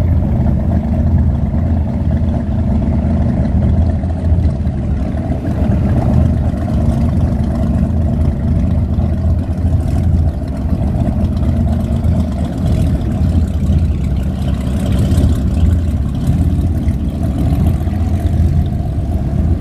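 Inboard engine of an antique wooden runabout running at low speed as the boat passes, a steady low engine note.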